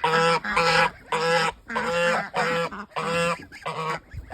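Domestic goose honking about seven times in quick succession.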